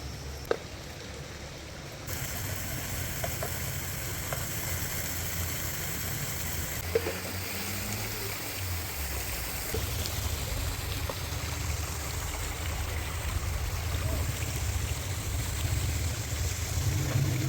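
A stream of water running steadily, with a low rumble underneath and a few small clicks.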